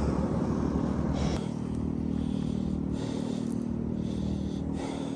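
An engine running steadily with a low, even hum, with short hissy sounds about once a second above it.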